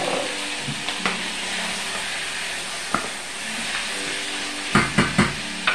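Peas and chopped vegetables sizzling in hot olive oil in a small saucepan while being stirred: a steady hiss, a few light clicks, and a quick run of loud knocks of the spoon against the pan near the end.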